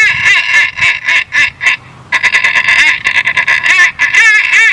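Human mouth call imitating a mallard duck: a string of loud, nasal quacks, a brief pause about two seconds in, then a longer, quicker run of quacks.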